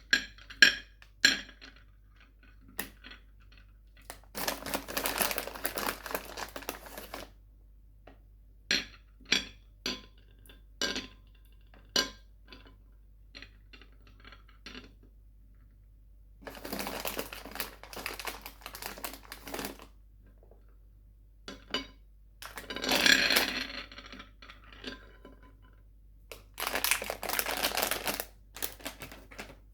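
Sweet wrappers crinkling in bursts of a few seconds, with single sharp clicks and taps in between.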